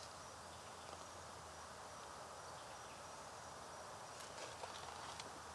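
Quiet outdoor background: a faint steady hiss with a thin, constant high insect tone, and a few faint ticks about four seconds in.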